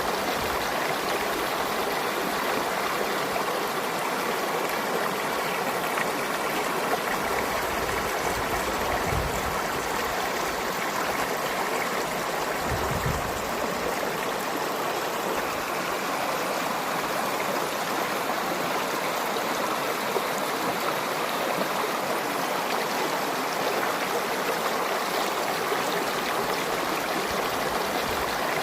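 Stream water flowing with a steady, even rushing and splashing.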